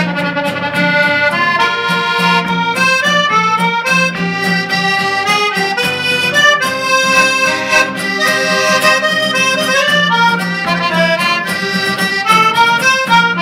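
Diatonic button accordion (Bolognese organetto) playing a quick filuzzi-style folk dance tune: fast runs of melody notes over a recurring held bass note.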